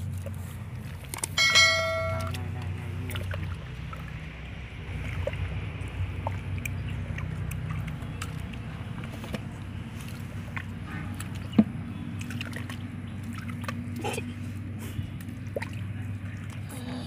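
Small wet squelches and clicks of hands digging in mud and grass, over a steady low motor drone. A short high pitched tone sounds about a second and a half in.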